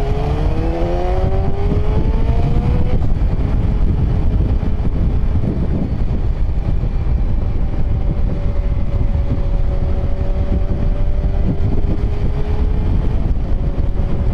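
Yamaha FZ1's inline-four engine accelerating, its note rising for the first few seconds, then dropping to a lower steady note that it holds while cruising, with heavy wind rumble on the microphone.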